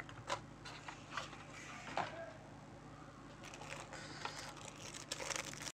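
Faint handling noise of a cardboard box and plastic packaging being moved on a desk: scattered light taps and short rustles, growing denser near the end, then the sound cuts off abruptly.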